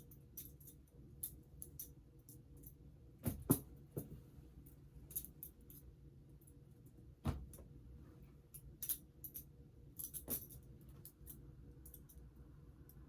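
Balisong (butterfly knife) handles clicking and clacking against each other and the blade as it is flipped through a trick combo. The clicks come irregularly, with a few louder clacks about three and a half, seven and ten seconds in.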